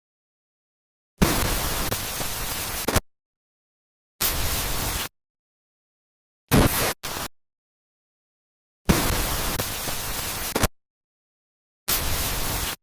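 Bursts of harsh, static-like noise that start and stop abruptly with silence between them: a long burst, a shorter one, then a brief doubled one, and the pattern repeats, five bursts in all.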